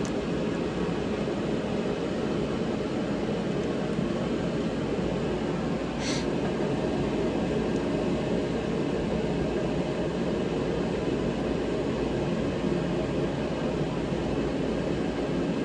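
Steady mechanical droning noise, like a running fan or air handler, with one brief click about six seconds in.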